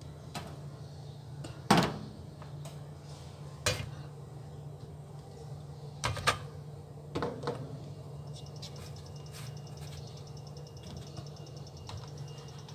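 Plastic puto molds set down one by one on the perforated metal tray of an aluminium steamer pot: a few sharp knocks, the loudest about two seconds in, over a steady low hum. A faint high whine joins from about eight seconds in.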